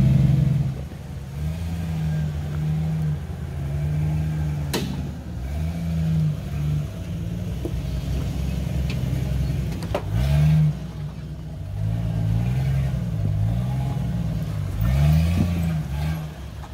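Jeep Cherokee engine revving up and down as the Jeep crawls over rock ledges on a trail, with two sharp knocks, about five and ten seconds in.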